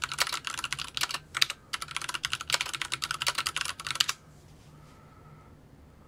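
Typing on a computer keyboard: a rapid, uneven run of key clicks that stops about four seconds in.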